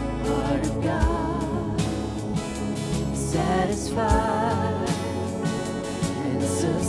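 Worship band playing a closing worship song, with a singer holding wavering, vibrato notes over sustained instrumental chords.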